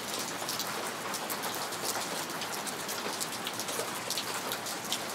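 Steady rain falling, with many separate drop hits ticking through a constant hiss.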